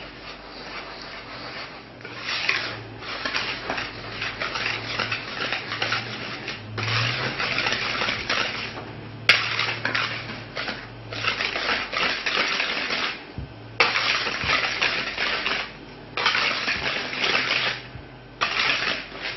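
Wire balloon whisk stirring dry cake ingredients (flour, cocoa powder and sugar) in a bowl, the wires scraping and rattling against the bowl in bouts of one to two seconds with short pauses. One sharp tap about nine seconds in.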